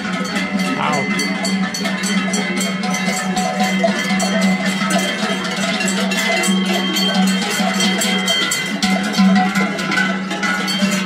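Many large cowbells on a passing herd of cattle, clanging constantly and unevenly as the cows walk.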